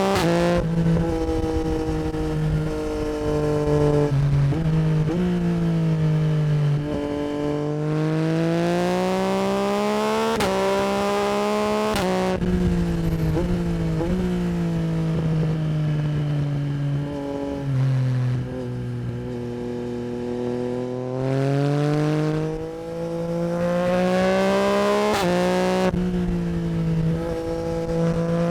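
Yamaha MT-09 SP's 890 cc CP3 inline-three through an Akrapovic Racing Line exhaust, ridden hard: the engine note climbs and drops again and again as the bike accelerates, changes gear and slows, with a rush of wind underneath.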